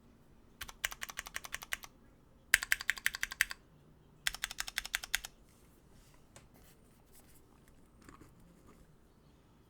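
Mechanical numpad with Cherry MX2A Purple switches on an aluminum plate in a tray-mount case, keys tapped in three quick bursts of rapid keystrokes, each about a second long. Then it goes nearly quiet with only a few faint taps.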